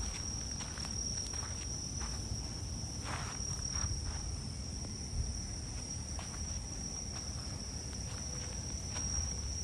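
Night insects singing in one steady, high-pitched trill that does not let up, with a few soft footsteps on a path and low rumble underneath.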